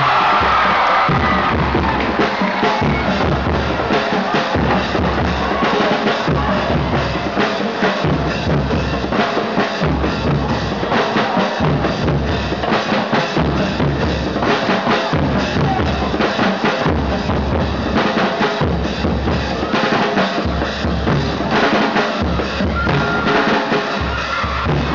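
Drums beating a steady rhythm led by a bass drum, over the noise of a gym crowd.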